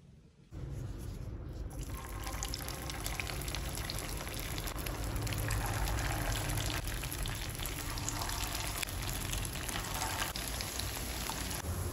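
Tofu balls deep-frying in a pan of hot oil: a steady sizzle full of fine crackles, starting suddenly about half a second in.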